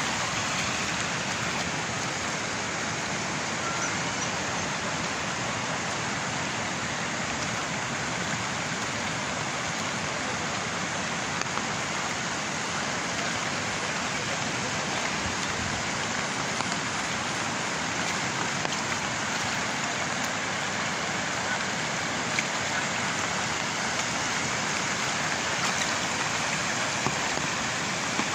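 Steady rush of muddy floodwater flowing across flooded paddy terraces and spilling over the terrace walls, an even noise that does not let up.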